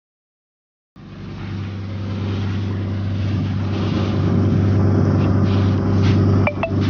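A fishing boat's engine running with a steady low drone, building slowly in loudness after starting about a second in. Two short high chirps sound near the end.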